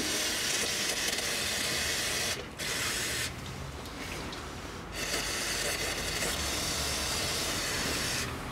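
Aerosol can of carburettor cleaner spraying through its straw in three hissing bursts: a long one, a short one, and after a pause of about two seconds a long one of about three seconds.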